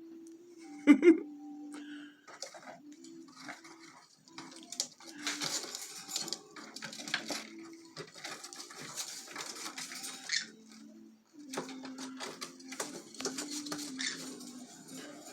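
Small pet parrots rummaging in a cardboard toy box, with irregular rustling, tapping and clicking. There is a short sharp chirp about a second in, and a faint low tone underneath that steps up and down in pitch.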